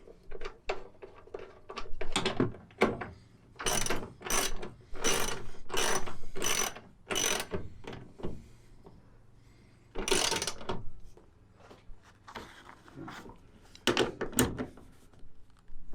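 Socket ratchet wrench worked in a run of short strokes on a bolt, clicking about once every three quarters of a second through the middle, with a few more strokes later.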